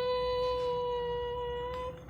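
A voice holding one long, steady note, part of a short hummed closing tune; the note ends just before the tune goes on with quick short notes.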